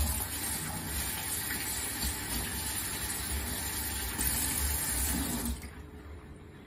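Kitchen tap running into a stainless steel sink, the stream splashing over hands rinsing under it; the tap is shut off about five and a half seconds in and the rush stops suddenly.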